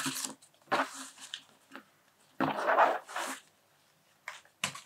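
Ribbon and paper packaging rustling and sliding as a ribbon-tied gift box is unwrapped by hand, in several short bursts with a longer one about halfway through.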